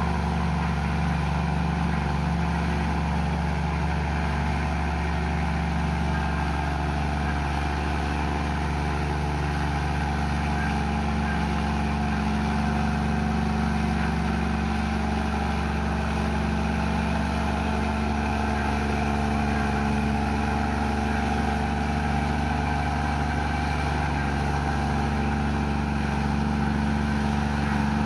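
Komatsu bulldozer's diesel engine running steadily, its note shifting a little in pitch.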